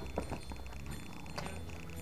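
A few short knocks and rustles as hands handle fish in a soft cooler bag and work its lid, the first knock the loudest, over a steady low hum.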